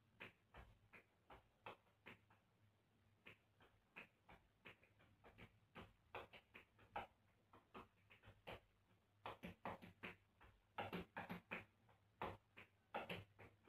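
Faint metal taps of tap shoes striking a tile floor in rhythm-tap (hoofing) footwork: scattered, irregular taps at first, then a dense, quick run of taps from about nine seconds in.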